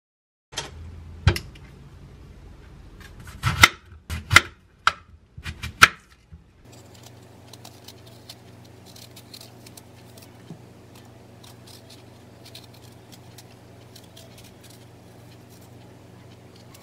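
Kitchen knife working an apple on a wooden cutting board: a handful of sharp knocks and crisp clicks in the first six seconds, then faint scraping ticks as the apple is peeled with the knife, over a low steady hum.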